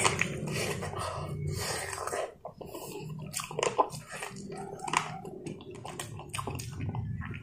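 Close-up mouth sounds of eating: chewing a mouthful of rice with wet lip smacks and many quick clicks.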